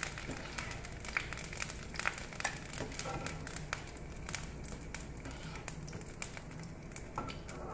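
Scattered light taps and clicks of kitchen utensils and containers being handled, over a low steady hum.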